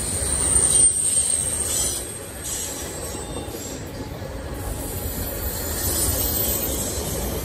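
Intermodal freight train's cars rolling past with a steady rumble of wheels on rail. A thin high wheel squeal sounds in about the first second, and the sound is loudest just before the one-second mark.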